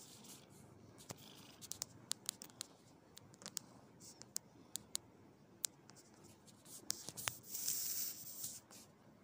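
Fingers scratching and rubbing through a cat's long fur close to the microphone: faint rustling with scattered sharp clicks, and a louder rustle for about a second near the end.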